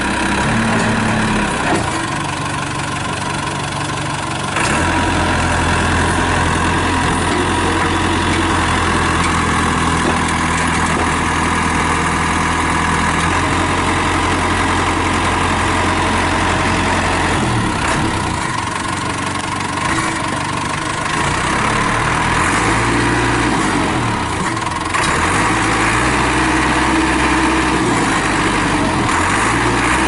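JCB 210S Series II backhoe loader's four-cylinder Perkins diesel engine running as the machine is worked. The engine note steps up about four seconds in, drops back around eighteen seconds, and picks up again about twenty-five seconds in.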